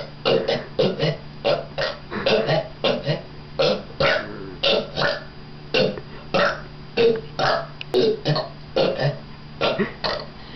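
A rapid string of short burps, one after another, about two or three a second.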